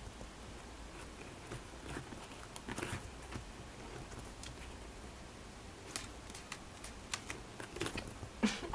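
Faint, scattered scratching and rustling clicks of a hamster's claws scrabbling at the fabric of a sofa arm as it tries to climb, with a louder cluster of clicks near the end.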